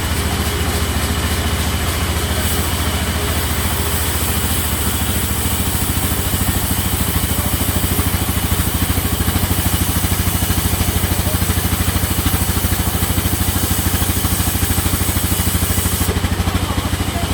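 Sawmill machinery running steadily: a continuous engine-like drone with a fast, even pulse.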